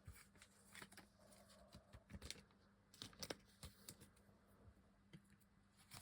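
Faint, irregular soft clicks and ticks of trading cards being handled and slid through one by one.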